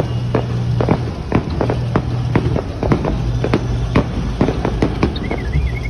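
Aerial fireworks bursting in quick succession, a steady stream of sharp bangs and cracks, two or three a second, over a low steady hum.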